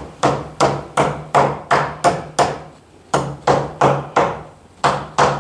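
Claw hammer tapping loose wooden wedges back into the joint of an old wooden door to tighten it up. The strikes come quickly, about three a second, in runs with a short break just before halfway.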